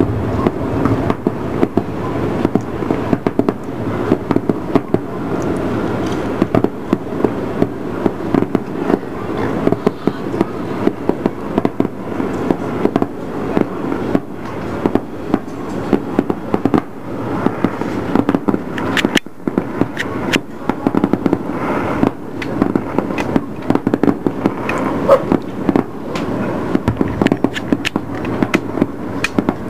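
Aerial fireworks display: a dense, almost unbroken run of bangs and crackles over a steady haze of noise, with a momentary gap about two-thirds through.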